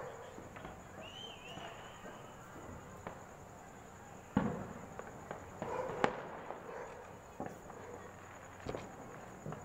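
Firecrackers going off: a handful of sharp bangs at uneven intervals, the loudest about four seconds in.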